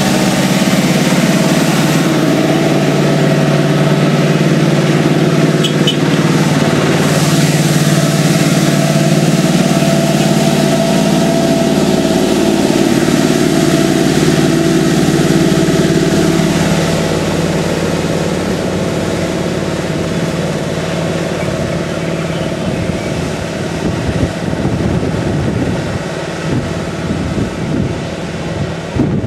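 Heavy diesel engine of a multi-axle mobile crane running at low speed as the crane grinds past close by, a steady, loud engine note. After about 17 seconds the engine sound drops away, and gusts of wind buffet the microphone near the end.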